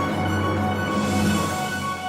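Background music: held high notes over a low bass line.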